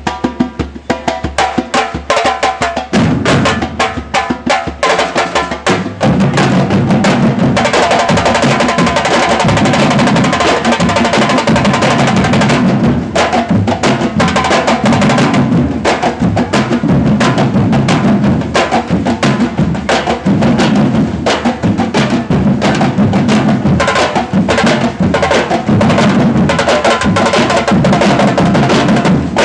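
Batucada drum band playing: light, sharp percussion hits first, bass drums coming in about three seconds in, and the full band joining about six seconds in with a dense, loud, steady rhythm.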